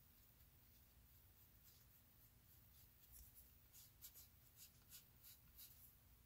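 Faint scratching of a slim wooden tool smoothing wet epoxy sculpt putty on a statue's cape: a run of light, short strokes from about halfway through.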